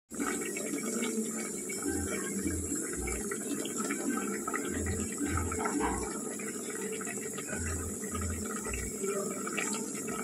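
Egg, potato and bok choy curry simmering in an aluminium pot: a steady watery bubbling hiss. Soft low thuds come in groups of three every few seconds.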